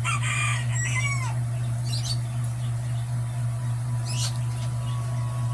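A steady low drone runs under short bird-like chirps, which come at about 1, 2 and 4 seconds; the first is a falling, whistled sweep. Near the end a held higher tone comes in.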